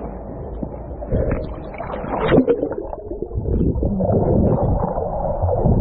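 Sea water sloshing and gurgling around a GoPro in its waterproof housing as a swimmer moves through it, muffled and uneven, with a few louder splashes around the middle.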